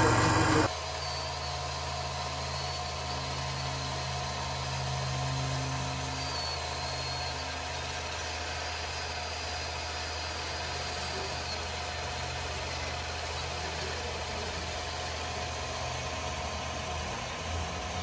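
A louder sound cuts off just under a second in, leaving a steady, even engine idle, the kind of diesel idle an RC truck's sound module or motor gives.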